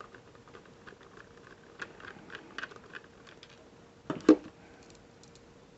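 Plastic housing parts of an owl-shaped ultrasonic diffuser clicking and rattling as it is handled and pulled apart, with a run of light clicks about two seconds in and one louder plastic knock about four seconds in.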